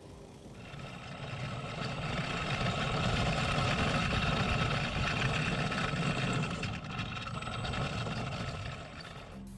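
The 775 brushed DC motor of a homemade RC car running with a steady whine over a rough, rumbling undertone. It builds up over the first couple of seconds, holds, and cuts off suddenly near the end.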